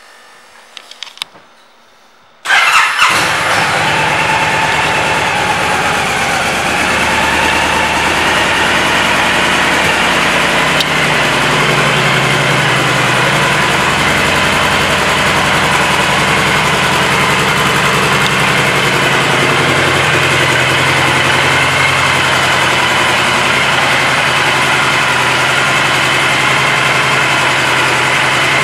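A 2016 Honda Fury's 1312 cc V-twin engine is started about two and a half seconds in, after a few faint clicks, and then idles steadily.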